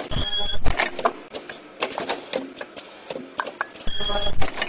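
Semi-automatic KN95 mask welding machine running: a busy clatter of pneumatic cylinder clicks and knocks. Two short buzzing tone bursts, each about half a second long, come from the ultrasonic welding heads as they seal a mask, once right at the start and again about four seconds in.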